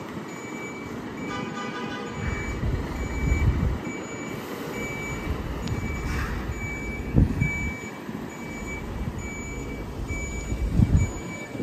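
Mercedes-Benz HGV's reversing alarm beeping steadily, a little under two beeps a second, while its diesel engine surges several times under load as it manoeuvres a low-loader carrying a crawler crane. A short hiss comes about halfway through.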